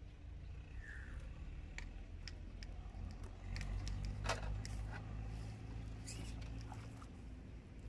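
Scattered light clicks and taps from rod, reel and landing net as a carp is played and netted, the sharpest about four seconds in, over a low steady rumble.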